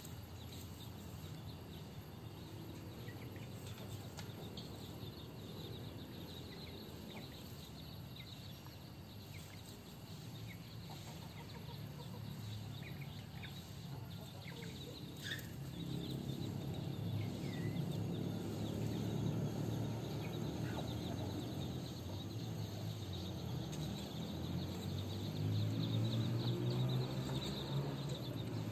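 Chickens clucking low, louder from about halfway through, with scattered short high peeps of chicks.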